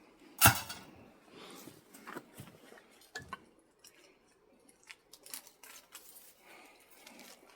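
Copper winding wire being pulled and crinkled out of an electric motor, with scattered small clicks, scratches and rustles. One sharp, loud metallic knock about half a second in.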